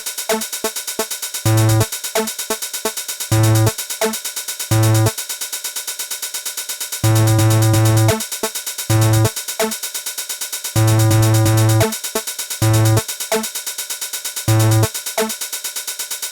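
Electronic music: a quick, even pulse of short repeated notes with heavy bass notes that come and go in blocks. It cuts off suddenly at the end.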